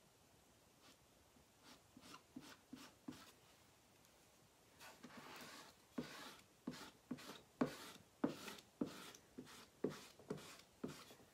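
Chalk paste being spread and scraped over a silk-screen transfer on a chalkboard with a squeegee, in short rubbing strokes. A few light strokes come first; from about six seconds in they turn louder and regular, about two a second.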